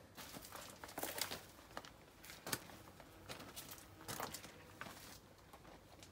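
Faint footsteps crunching on gravel ballast and undergrowth, a step about every second.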